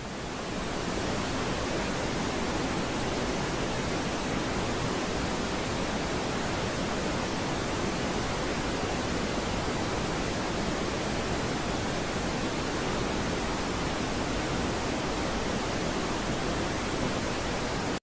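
Waterfall plunging into a pool: a steady rush of falling water, swelling in during the first second.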